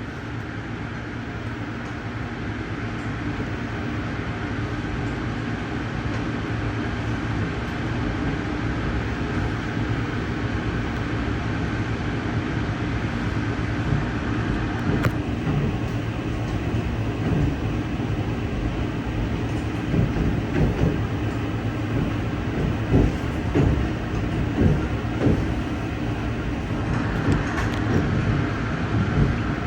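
Ride noise inside a moving Amtrak passenger train: a steady rumble of wheels on rail that grows gradually louder, with irregular knocks and clacks from the running gear from about twenty seconds in.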